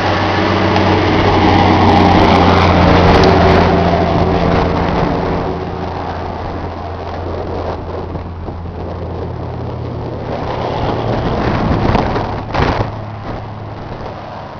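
Ford 6610 tractor's four-cylinder diesel engine running at a steady speed. It is louder for the first few seconds and softer from about five seconds in. There is a brief burst of noise near the end.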